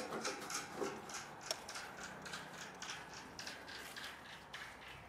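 Rope hoist on a hinged tennis court light pole raising the light head: a rapid, uneven series of faint mechanical clicks and creaks as the rope is hauled in.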